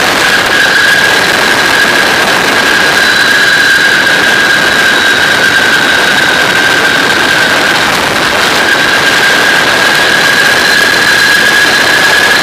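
Flex-wing microlight trike's engine and propeller running steadily at cruise, mixed with heavy wind rush over the microphone and a steady high-pitched whine.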